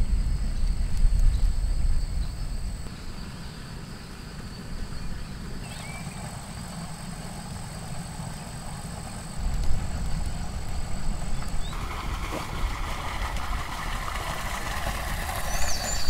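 Forest ambience: a low wind rumble with steady high-pitched insect tones above it, and a short bird chirp about six seconds in.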